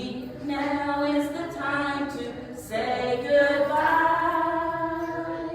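Unaccompanied singing of a goodbye song, led by a woman's voice, ending on one long held note.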